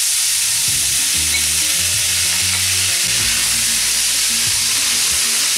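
Sliced vegetables (baby corn, water chestnuts, bell peppers) sizzling in hot oil in a stainless steel skillet on high heat, stirred with a slotted spoon; a loud, steady hiss.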